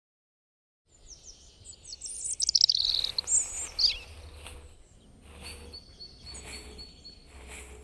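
Birds chirping and trilling, starting about a second in and loudest over the next few seconds, over a low wind rumble. From about three seconds in, a soft swish about once a second: footsteps through grass.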